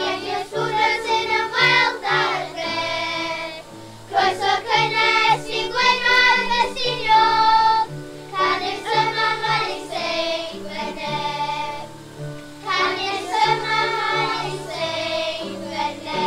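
Children's choir singing a song in Welsh, phrase after phrase with held notes and short breaths between lines.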